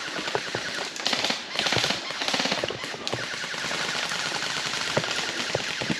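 Airsoft guns firing rapid full-auto bursts, a dense rattle that grows louder for a couple of stretches about a second in, with sharp single clicks scattered through it.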